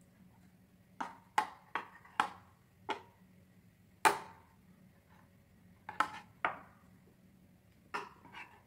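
About ten light clinks and knocks at irregular intervals, each with a short ring, the loudest about four seconds in: kitchen items being set down and tapped against ceramic dishes while food is plated.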